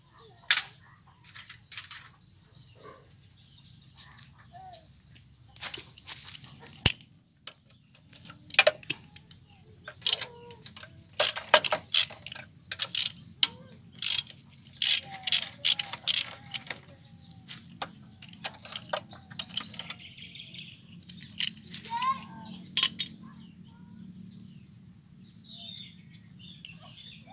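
Hand tools clinking on metal as a 12 mm wrench works the bolts of the front cover on a Kubota ER65 diesel engine. The clicks and clinks come irregularly, bunched in a quick run through the middle.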